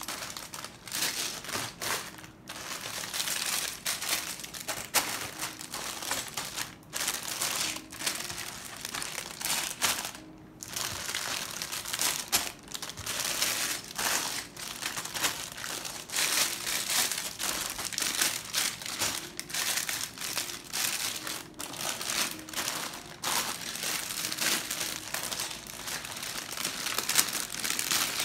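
Clear plastic Lego parts bags crinkling and rustling in irregular bursts as they are handled, picked up and set down on a table.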